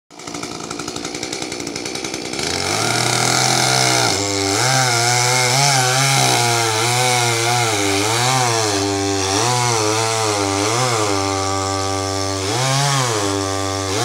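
Chainsaw idling with a rapid pulse, revving up about two seconds in, then cutting into the base of a palm trunk, its pitch rising and sagging again and again under the load of the cut.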